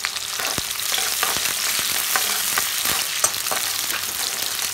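Sliced onions sizzling and crackling in hot oil in a kadhai, being fried until brown, with a metal spatula scraping and stirring them now and then.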